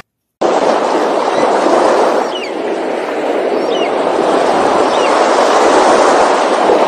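Steady rushing of wind and water, with three short, high, descending bird of prey calls about a second and a half apart. It cuts in abruptly after a moment of silence.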